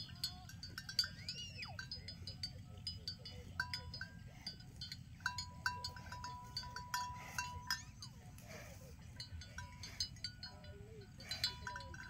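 Small metal bell on a domestic water buffalo's neck clinking and ringing irregularly as the animal moves its head, over a steady low rumble. A single rising-then-falling call sounds about a second in.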